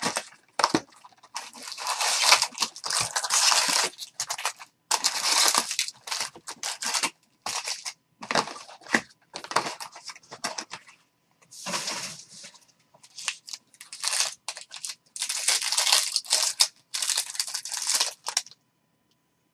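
Foil wrappers of 2018 Bowman Jumbo baseball card packs and the box's cardboard crinkling and tearing as the box is opened, the packs handled and one pack torn open. It comes as a string of short crinkly bursts that stops shortly before the end.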